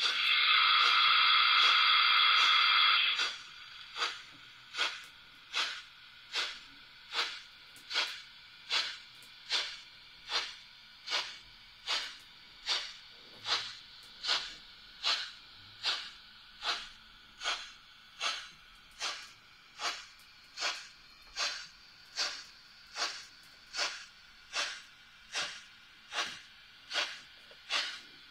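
Sound decoder of a Märklin 37015 H0 model of the Bavarian S 2/6 steam locomotive: a loud steam whistle for about three seconds, then an even, slow steam chuff, about one and a third beats a second.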